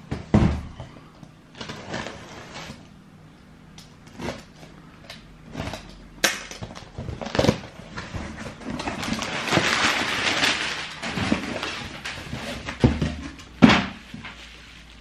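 Trainer boxes and their packaging being handled: scattered knocks and thuds, with a few seconds of crinkly plastic-wrapping rustle in the middle and two sharper knocks near the end.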